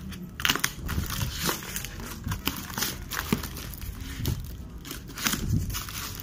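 Cardboard shipping box and its packing tape being cut with scissors and ripped open by hand: a run of irregular crinkling, crackling and tearing noises.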